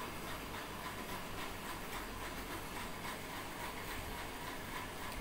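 Steady faint hiss with the light scratching of a felt-tip marker writing on a board.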